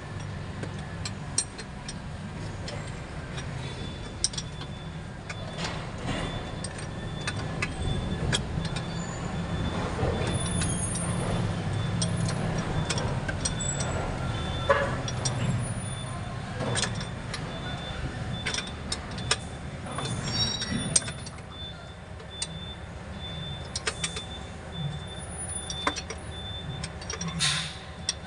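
Hand tools and bolts clicking and knocking against metal as the mounting of a truck's A/C compressor is worked on, over a steady low mechanical rumble.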